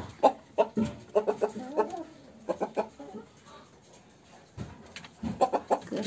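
Domestic chickens clucking in short, scattered calls, with a quieter stretch in the middle and a cluster of clucks near the end.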